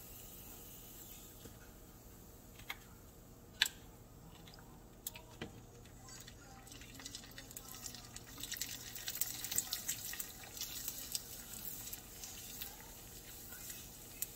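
Cassava crackers frying in hot oil: faint sizzling with small pops and crackles, busiest past the middle, after a few sharp clicks in the first seconds.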